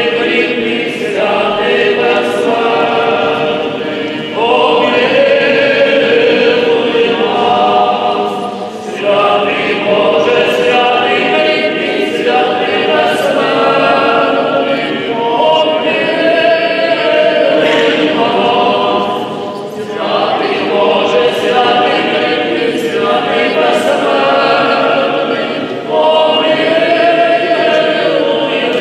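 A choir singing an unaccompanied funeral chant in long held phrases, with brief breaks between phrases.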